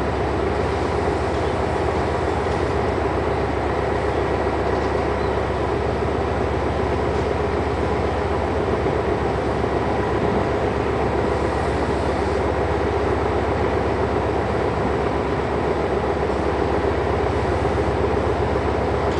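Passenger train pulling away along the track behind a diesel locomotive: a steady, even rumble.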